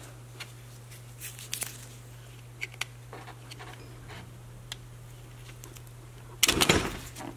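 Faint clicks and taps of needle-nose pliers working small spade connectors off winch solenoid terminals, with a louder scraping rustle of wire handling about six and a half seconds in. A steady low hum runs underneath.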